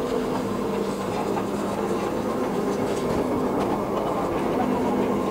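Steam locomotive No. 207 turning slowly on a railway turntable: a steady mechanical hum with a few light clicks.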